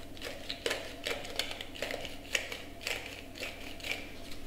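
Hand-twisted spice grinder grinding dried chili, a run of irregular crunching clicks about two to three a second.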